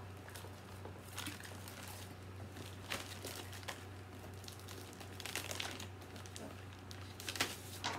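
Quiet, intermittent crinkling and rustling of plastic bags and paper being handled as craft purchases are taken out, with a few light ticks.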